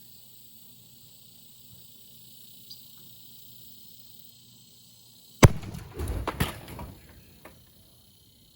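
An aerosol spray-paint can bursting from the heat inside a toaster oven: a sharp bang about five seconds in, followed by about two seconds of rushing noise with a few more cracks as the contents blast out.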